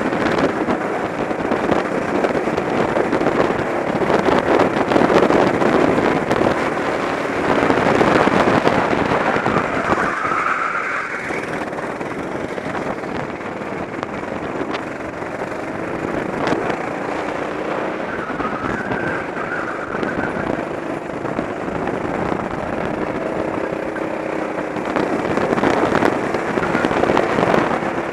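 Go-kart engine running hard, heard close up from an onboard camera on the kart, with a dense crackly exhaust note. The loudness swells and eases several times, around 4 to 9 seconds in and again near the end.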